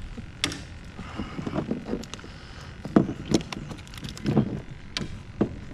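Clicks and knocks of a sand trout being unhooked with pliers and a fish grip over a plastic kayak deck, with a few short low-pitched sounds mixed in. The sharpest knock comes about three seconds in.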